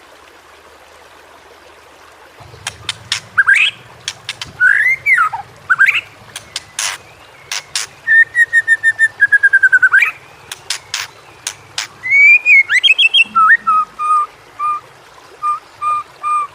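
White-rumped shama (murai batu) singing: after a couple of seconds of hiss, loud varied whistled phrases rising and falling, mixed with sharp clicks, a quick run of repeated notes about halfway through, and a string of evenly spaced short whistles near the end.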